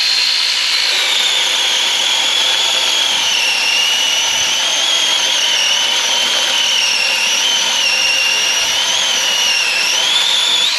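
Seesii SC8B 8-inch cordless mini chainsaw with brushless motor running and cutting wood. Its high whine drops in pitch about a second in as the chain takes the load, wavers through the cut, and climbs again near the end.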